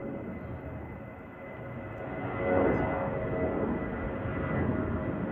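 Airplane flying overhead: a steady engine drone that grows louder about two seconds in.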